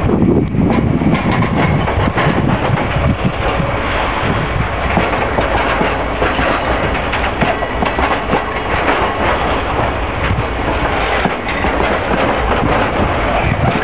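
Loaded open coal wagons of a long freight train rolling past, their wheels clacking on the rails over a steady rolling rumble.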